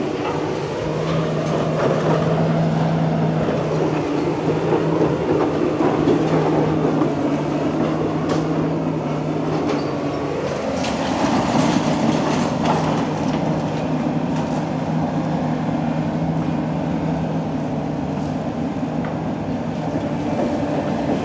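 Komatsu PC360LC excavator's diesel engine running steadily under hydraulic load while it pulls down a building. Its drone steps up in pitch about ten seconds in, with a few knocks of breaking debris.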